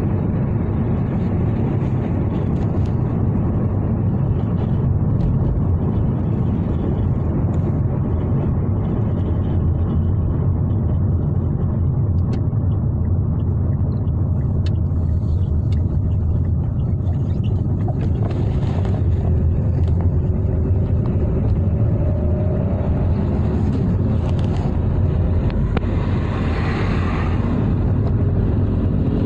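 A car driving along a road: a steady low rumble, with a short swell of higher-pitched noise near the end.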